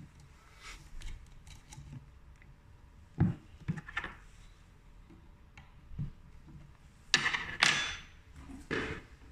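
Scattered handling noises: a few sharp clicks and knocks about three to four seconds in, then two brief rustling scrapes near the end.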